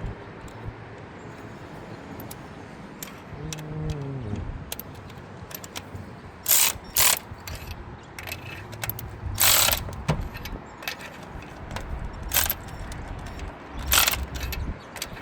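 Ratchet wrench clicking in several short runs, about five in all from about six seconds in, as a spark plug is snugged down in the cylinder head.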